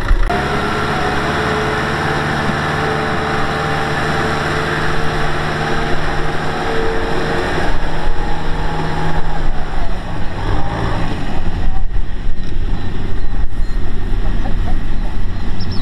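Kubota M6040SU tractor's four-cylinder diesel engine running steadily under load, pulling a trailer loaded with rice sacks through mud. About eight seconds in it sounds farther off and more uneven.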